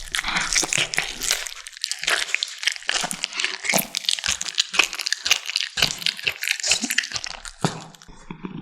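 Kittens chewing and crunching on a large chicken drumstick: rapid, irregular crunches that ease off briefly near the end.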